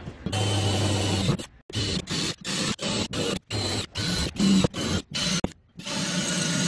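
Cordless drill running as it bores small holes through a thin metal plate, a steady motor whine that stops and starts in short bursts, with several brief dead silences between them.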